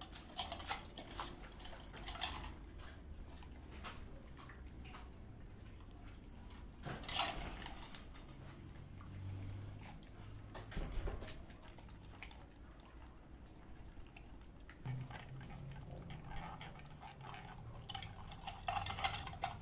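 Dogs eating from stainless steel bowls on concrete: scattered clinks and scrapes of the metal bowls amid eating noises. The clinks come thicker about seven seconds in and again near the end.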